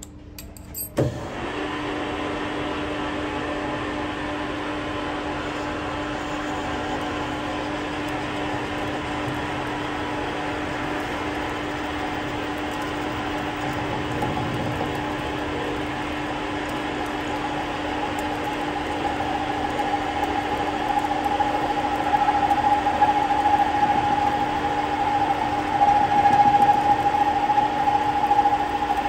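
Metal lathe switched on with a clunk about a second in, then running steadily. From about two-thirds of the way through, a steady high whine grows louder and rougher as the tool works against the spinning ball-joint stud.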